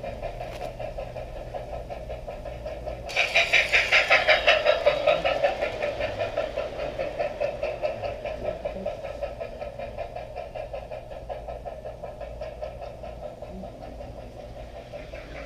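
G-scale model train running on garden track: a steady electric motor hum with a rhythmic clicking of wheels on the rails. It gets suddenly louder about three seconds in, then slowly fades away.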